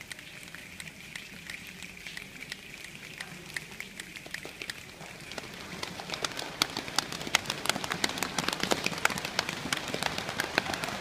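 A theater audience making the sound of rain together with their hands: a soft hiss with scattered light taps that thickens, about halfway through, into a dense, louder patter of sharp taps like a downpour.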